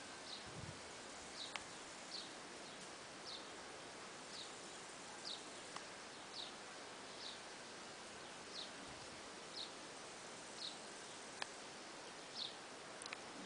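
Outdoor ambience: a short, high chirp that falls slightly in pitch, repeated about once a second, over a steady hiss.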